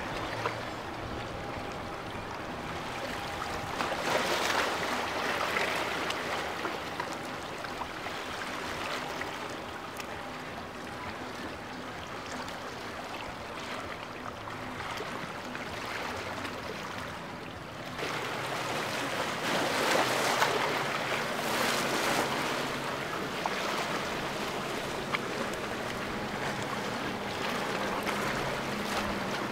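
Boat engines running over rushing, splashing inlet water and waves, with wind on the microphone; the water noise swells twice, and there is a sudden change of shot partway through.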